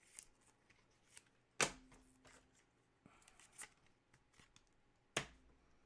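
Trading cards being handled and slid against each other, with soft rustles and two sharper taps, one about one and a half seconds in and one near the end.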